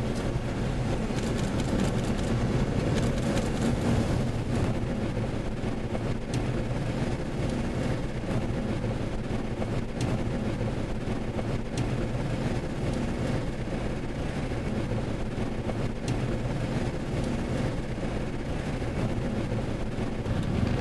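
Steady hum of a vehicle's engine and an even rush of noise, heard from inside the car's cabin. A few sharp ticks of raindrops hit the windshield.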